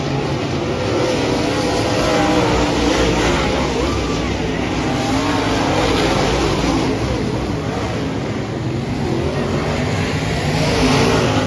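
Several dirt-track race cars running flat out around a clay oval, their engines' pitch rising and falling as they circle. The sound swells near the end as the cars pass close.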